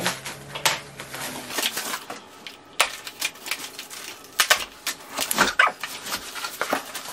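Plastic stretch wrap crackling and cardboard rustling as a shipping box of acrylic sheets is unwrapped by hand: irregular crinkles and snaps, busiest past the middle.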